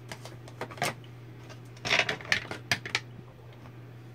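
Small plastic makeup compacts clicking and clattering as they are handled and set down: a few light taps, then a busier clatter about two seconds in.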